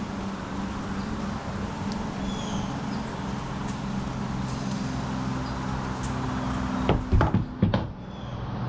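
A steady low mechanical hum, with a few faint bird chirps and a short cluster of low knocks near the end.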